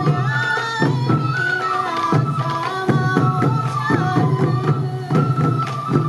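Sansa odori festival music: sansa taiko drums carried by the dancers are beaten in a steady rhythm under a high, stepping melody from a Japanese bamboo flute (fue).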